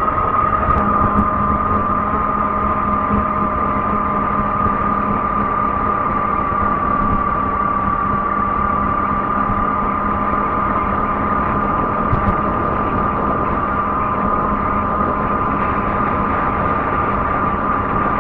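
Fat-tire e-bike riding along, giving off a steady whining drone that drifts slightly in pitch, with a lower hum beneath it and wind rumble on the microphone.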